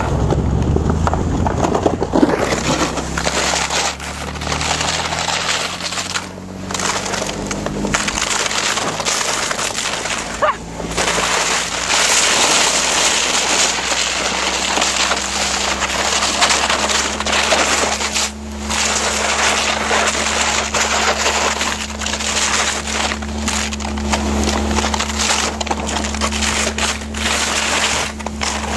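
Car engine running under a loud, continuous rushing and scraping noise as it tows a makeshift sled over an icy road. The engine note shifts in the first few seconds, then holds steady.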